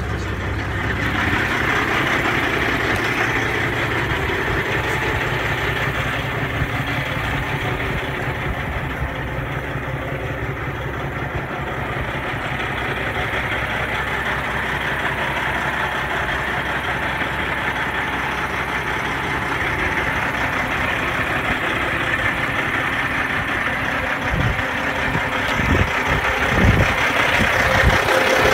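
2007 International 9400i semi-truck's diesel engine idling steadily, with a few low thumps near the end.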